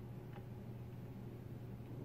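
Quiet room tone with a steady low hum and one faint small tick about a third of a second in.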